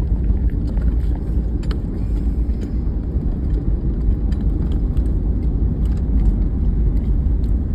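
Road vehicle driving, heard from inside: a steady, heavy low rumble of road and engine noise with faint small knocks and rattles.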